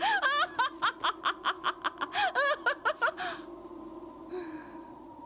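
A woman laughing mockingly in a fast, even run of ha-ha sounds that breaks off a little over three seconds in, leaving a faint steady hum.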